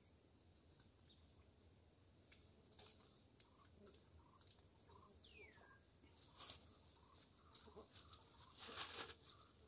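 Very quiet outdoor ambience with scattered faint clicks and rustles of hands at work. About halfway through comes one short falling whistle, and near the end a brief crinkling rustle of a clear plastic bag being handled.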